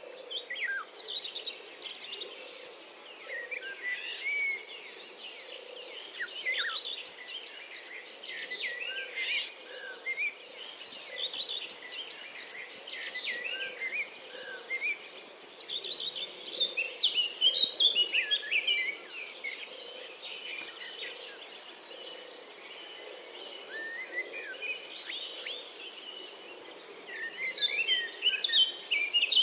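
European robin singing: bursts of high, thin, rapid warbling phrases, loudest about two-thirds of the way through and again near the end. A steady faint high tone runs underneath.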